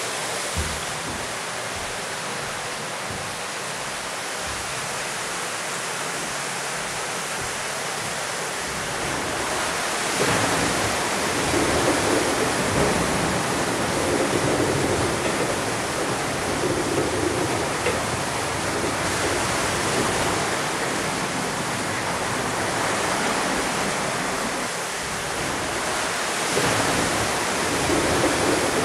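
Water rushing through a mill's water wheel, a steady splashing roar that grows louder and fuller about ten seconds in.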